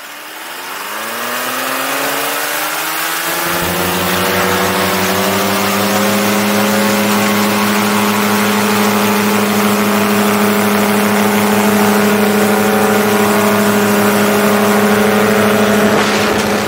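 Paramotor trike's engine and propeller throttled up from idle, the pitch rising quickly over the first three or four seconds and then holding steady at high power through the takeoff run and climb. The pitch eases down slightly near the end.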